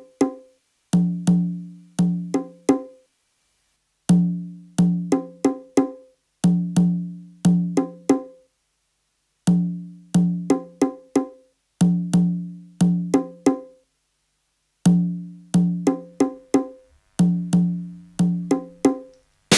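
Music: a sparse, repeating pattern of short, pitched percussion hits, each dying away quickly, played in short phrases separated by brief silences.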